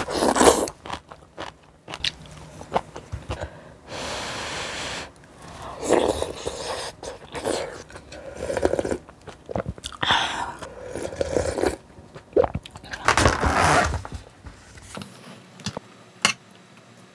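A person eating close to the microphone: biting, chewing and crunching in short, irregular bursts with brief pauses between them.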